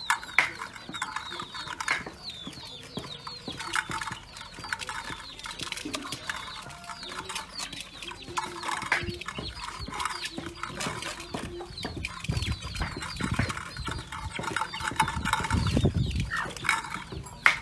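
Chickens clucking, with many short, high, falling peeps repeating throughout.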